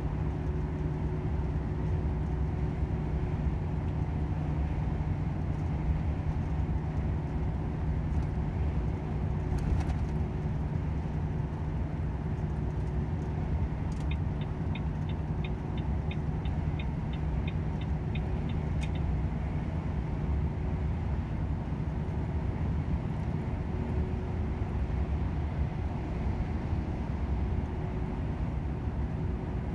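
Volvo FH 500 truck's 13-litre straight-six diesel running steadily under way, heard inside the cab over road rumble. About halfway through, the turn signal ticks rapidly and evenly for about five seconds, and starts again near the end.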